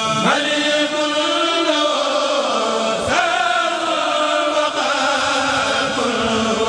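A group of men chanting a khassida (Mouride devotional poem in Arabic) in unison without instruments, in long held notes that swoop to a new pitch at the start and again about three seconds in.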